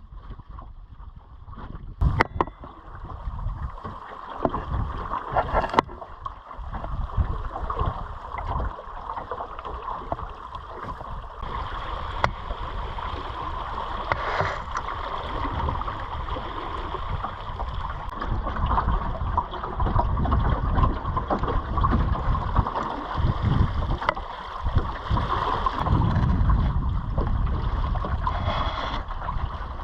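Water rushing and gurgling along the hull of a small clinker sailing dinghy under sail, with wind rumbling on the microphone, heavier in the second half. Two sharp knocks in the first six seconds.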